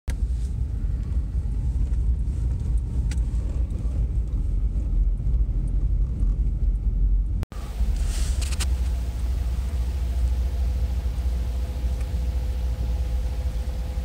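Low, steady rumble of blizzard wind buffeting a vehicle, heard from inside the cab, broken off by a sudden cut about halfway through; after the cut a faint steady hum sits under the rumble.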